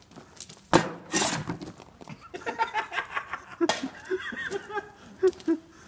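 A sharp knock about a second in, followed by a person laughing in short, choppy bursts.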